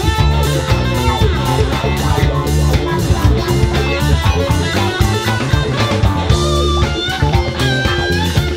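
Live rock band playing an instrumental passage on electric guitars, bass guitar and drum kit, with held lead guitar notes ringing out over it in the second half.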